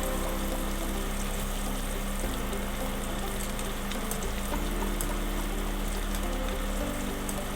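Squid pieces deep-frying in hot oil at about 180–200 °C, a steady sizzle throughout, the second fry that crisps them. Soft background music with held low notes runs underneath.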